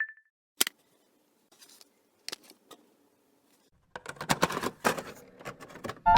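A short high beep, then a few sharp clicks, then, from about two thirds of the way in, a quick run of clicking and rustling, typical of a phone box and its wrapping being handled and opened.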